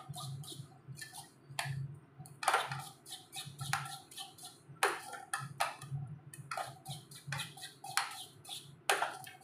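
Spoon stirring thick chocolate ganache in a metal pot, scraping and clicking against the pot's sides and bottom in short, irregular strokes.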